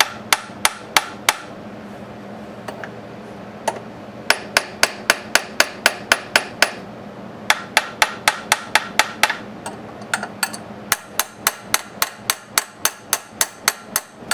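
Rapid light hammer taps, metal on metal, on a seized cast-iron part of a 1930 Briggs & Stratton model FH engine held in a vise, shocking it to work it loose. The taps come in runs of about three or four a second with short pauses, and come faster in the last few seconds.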